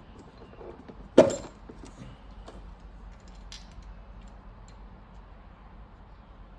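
Engine parts and hand tools being handled during rocker arm installation: one sharp clank about a second in, then a few light clicks.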